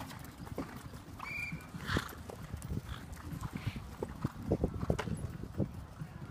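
Hoofbeats of several horses cantering on a dirt riding arena: many irregular dull thuds. A short high-pitched chirp comes a little over a second in.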